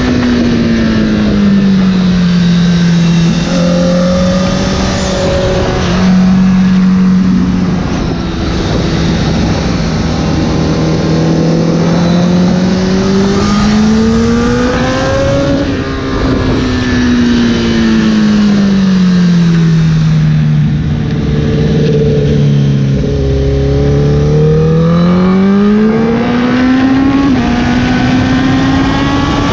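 Honda sport bike engine heard from on board at speed, its note falling and rising in long sweeps as the rider backs off and opens the throttle through the corners, with a rush of wind over it.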